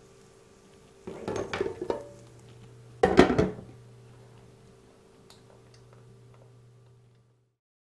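Kitchen tongs clattering against an electric frying pan about a second in, then a loud clank about three seconds in as its glass lid is set on the pan. A faint steady hum runs underneath and stops near the end.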